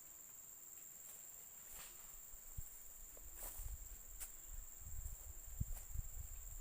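A steady high-pitched insect chorus of crickets. A few sharp clicks come through it, and from about halfway on there are low, uneven bumps.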